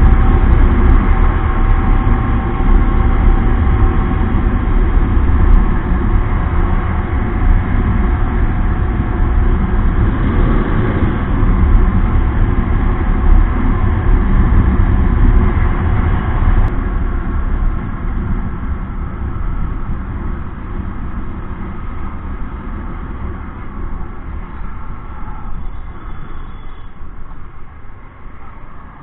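Riding a Bajaj Discover motorcycle at road speed: a steady loud rush of wind on the microphone over the bike's single-cylinder engine. The rush drops and grows quieter about two-thirds of the way through as the bike slows into traffic.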